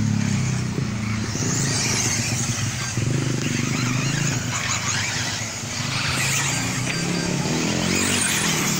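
Electric 4WD RC off-road buggies racing, their motors giving a high-pitched whine that rises and falls as cars pass, several times over, above a steady low hum.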